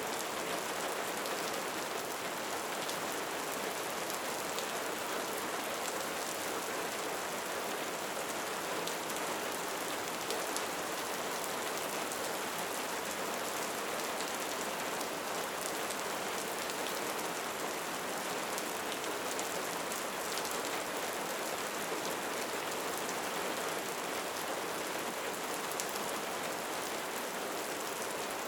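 Steady rain falling in a cenote: an even hiss of many drops, with faint separate drip ticks through it.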